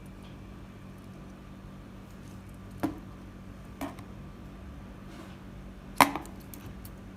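Three sharp knocks, about a second apart and then two seconds apart, the last the loudest, over a steady low hum.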